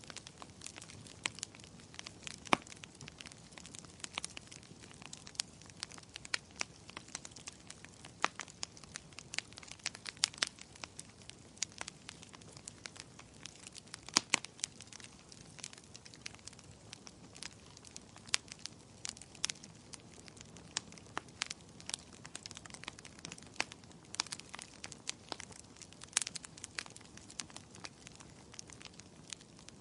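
Firewood burning in a fireplace: dense, irregular crackling and popping over a faint steady hiss, with a few louder pops scattered through.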